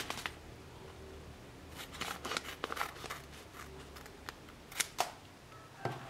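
Scissors cutting open a seed packet: scattered crisp snips and crinkles of the packet, the loudest a pair of sharp clicks about five seconds in.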